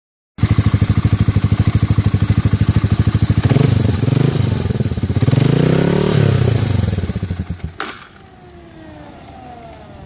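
Engine idling with a rhythmic pulse, then making an odd warbling noise as it is shut down, its pitch swooping up and down before it dies with a click about eight seconds in. Faint falling whines follow as it winds down.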